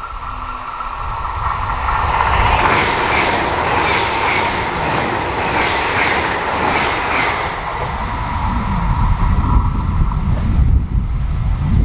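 Train passing on an electrified mainline: rushing wheel and rail noise builds about two seconds in and eases near the end, with a steady whine and a run of regular clicks of wheelsets over the rails.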